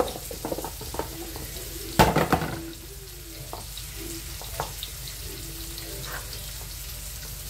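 Merguez sausages tipped out of a plastic tub onto a plastic cutting board with one loud clatter about two seconds in, then a few light clicks of a knife slicing them against the board. Underneath runs the steady sizzle of onions frying in a pan.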